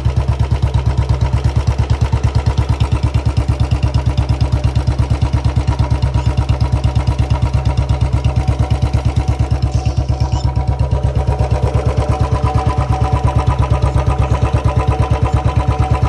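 Royal Enfield Bullet BS6's single-cylinder engine idling, an even train of low exhaust pulses, several a second.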